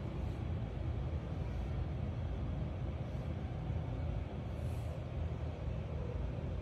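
Steady low rumble, with no distinct events.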